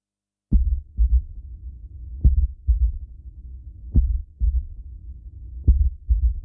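Heartbeat sound effect: four double low thumps (lub-dub), one pair about every 1.7 seconds, starting about half a second in, over a low steady drone.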